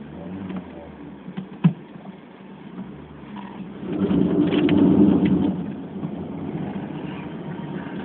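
Renault Mégane on the move, heard from inside the cabin: steady engine and road noise, with a sharp click about a second and a half in. Around the middle the noise swells louder for about two seconds, then settles back.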